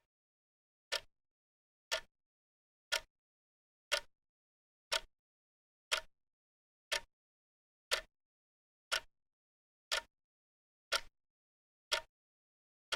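Clock ticking, one sharp tick every second, starting about a second in, with dead silence between the ticks.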